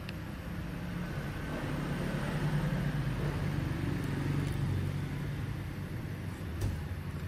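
Steady low engine-like rumble, like a motor vehicle running or passing, swelling in the middle, with a short click near the end.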